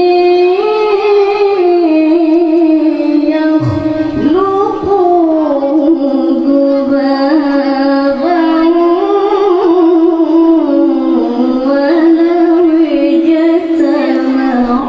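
A boy's voice reciting the Quran in the melodic tilawah style, amplified through a handheld microphone. He holds long, ornamented notes that slide up and down in pitch, with a brief pause between phrases about four seconds in.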